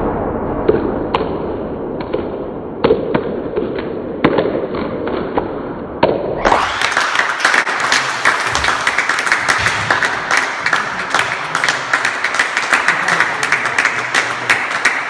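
A few sharp knocks over a muffled background, then, about six seconds in, applause sets in abruptly: many hands clapping in a dense, steady crackle that carries on to the end.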